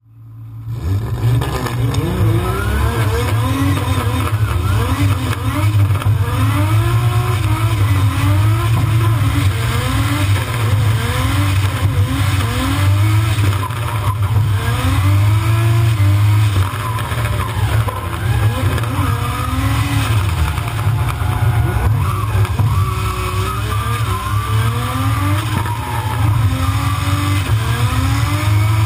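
Drift car's engine revving hard again and again while drifting, the pitch sweeping up and falling back every second or two, over a heavy low rumble.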